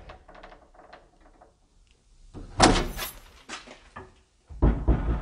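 A round metal doorknob on a wooden door being turned and rattled, with small clicks, then a sharp knock about two and a half seconds in and a heavy thud near the end as the door is pulled against its frame.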